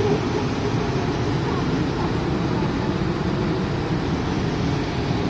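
Steady rushing outdoor roar with a fluctuating low rumble: the Big Sioux River falls heard across the park, with wind buffeting the microphone.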